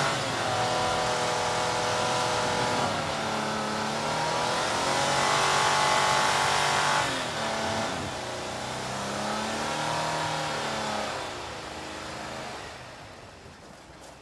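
Jeep Wrangler JK engine revving in several surges, its pitch rising and falling, as the tyres churn through deep snow. The sound fades away near the end as the Jeep pulls away.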